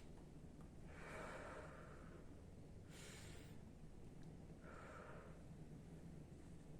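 A person breathing slowly and deeply in and out for a lung check, three faint breath sounds: about a second in, about three seconds in and near five seconds in.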